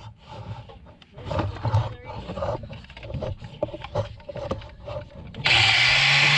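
Scattered knocks and scrapes of handling, then, about five and a half seconds in, a loud steady machine noise with a low hum starts abruptly, like a power tool switched on.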